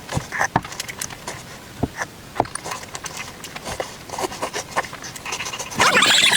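Eating sounds: irregular smacks and clicks of chewing and food handling, with a louder, denser stretch near the end.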